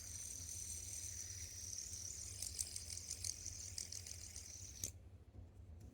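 Titanium fidget spinner spinning on its bearing, a steady high, thin whir with a few faint ticks a few seconds in. The whir cuts out near the end.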